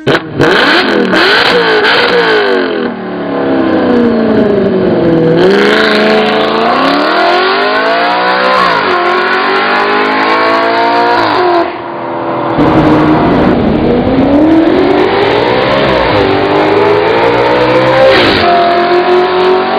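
Audi RS5's V8 with an Armytrix aftermarket exhaust, revving hard as the car accelerates. The engine note climbs and then drops sharply several times as it shifts up through the gears.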